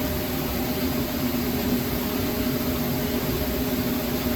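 Steady hum of a shop machine's motor running, with a constant low drone and no change in pitch.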